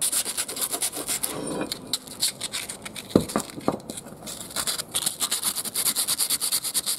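Sandpaper rubbed by hand in quick back-and-forth strokes over a small metal muffler hanger bracket, scuffing the surface so paint will grip. There are a couple of light knocks about three seconds in.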